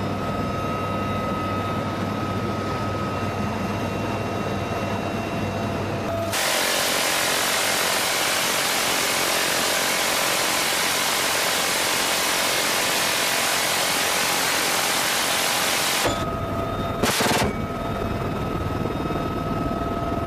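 UH-1Y Venom helicopter cabin noise: a steady turbine whine over the rotor drone. About six seconds in, a louder, dense roar takes over for about ten seconds and cuts off sharply: the GAU-17 Gatling gun firing a long burst. The cabin drone then returns, with one short sharp burst about a second later.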